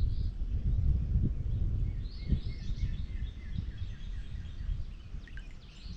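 Birds chirping and singing over a low, uneven rumble of wind buffeting the microphone.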